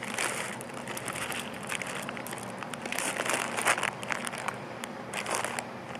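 Jelly bean bag crinkling and rustling in several bursts as beans are picked out of it by hand.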